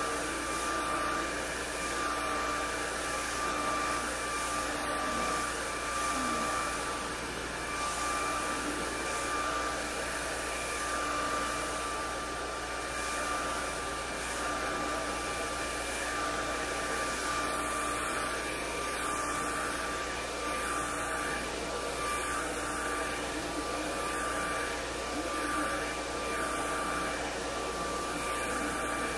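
Handheld hair dryer running steadily while blow-drying hair: a constant rush of air with a steady high whine from the motor.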